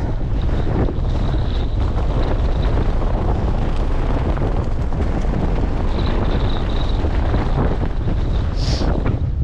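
Wind buffeting the microphone on an exposed hilltop: a loud, steady, low rumble, with a brief higher hiss near the end.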